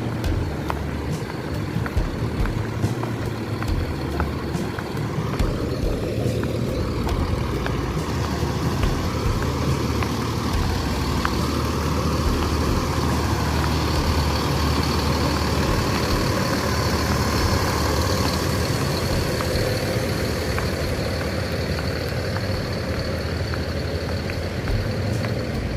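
Diesel engines of large tour buses running as they move about a parking area. One engine note swells through the middle, and a thin high whine comes in about halfway through.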